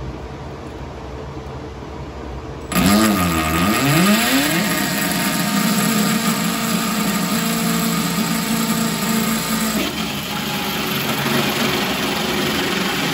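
Milwaukee cordless drill with a hole saw cutting through the sheet-metal side of a pickup bed. It starts suddenly about three seconds in, its pitch swooping up and down for a couple of seconds as the saw bites, then settles into a steady whine with the grating of the teeth in the steel.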